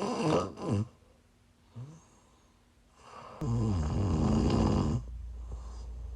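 A woman snoring in her sleep while ill: a loud snore tails off in the first second, then a second, longer snore begins about three seconds in and lasts nearly two seconds. A steady low hum comes in partway through the second snore and carries on.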